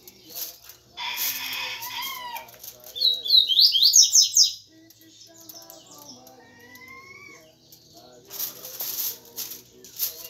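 Aluminium foil crinkling in two spells as a seasoned tilapia is handled and wrapped in it. Around the middle a bird sings a quick run of high chirps, the loudest sound.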